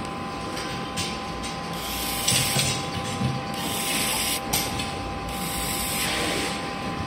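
Screwdriver work on the small plastic gearbox of a Sillosocks Wingbeat flapper decoy: irregular bursts of scraping and plastic handling noise as screws are driven, over a steady background hum.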